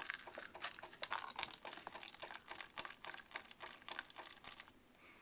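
Gasoline spurting in quick irregular crackly pulses from the scooter's disconnected fuel line into a plastic tub, stopping just before the end. The fuel pump is delivering fuel, so fuel supply is ruled out as the cause of the no-start.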